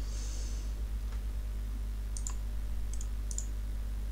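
A few sharp, spaced-out clicks of a computer mouse, several coming as quick press-and-release pairs in the second half, over a steady low electrical hum. A short soft hiss is heard at the start.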